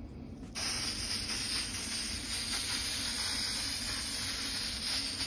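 Aerosol can of polyurethane sealant spraying: one long steady hiss that starts about half a second in.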